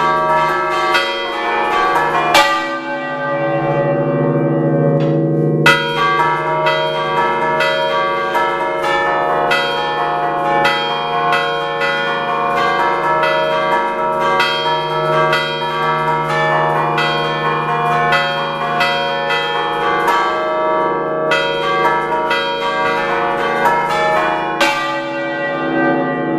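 Six church bells tuned in D (five cast by Picasso of Recco in 1905, one in 1977), rung by hand in the Ligurian 'a ducale' style. Rapid rhythmic strokes follow one another, and the bells' ringing overlaps. The strokes pause about two and a half seconds in, leaving the bells humming, then start again about three seconds later.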